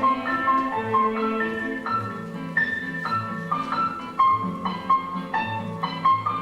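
Instrumental ballet score: a melody of short separate notes, about two a second, on piano-like keyboard tones over a lower bass line.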